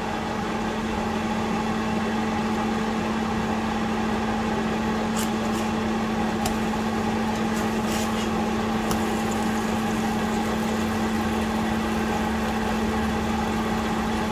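Range hood exhaust fan running with a steady, even hum, switched on to clear steam from frying. A few brief sharp ticks sound over it.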